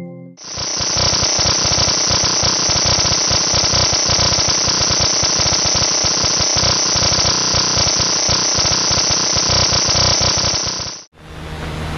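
Harsh, dense crackling static, like radio noise, presented as the sonified 'sound' of a trans-Neptunian object. It starts abruptly and cuts off sharply about a second before the end, when a softer, steady rushing noise begins.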